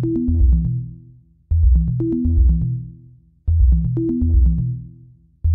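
Electronic background music: a short, deep synthesizer bass phrase with a higher held note on top, repeating about every two seconds and dropping out briefly between repeats.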